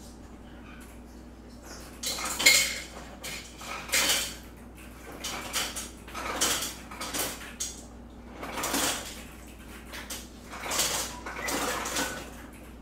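Cups and dishes clattering as they are handled: a run of irregular knocks and clinks starting about two seconds in.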